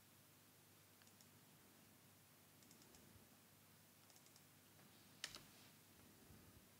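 Near silence with faint computer keyboard and mouse clicks: a few light taps in small clusters, and one sharper click about five seconds in.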